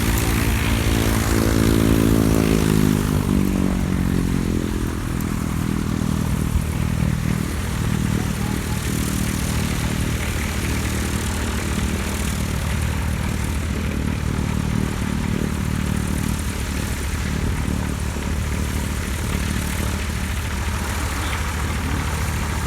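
Aircraft engine noise that falls in pitch over the first few seconds, then settles into a steady low drone.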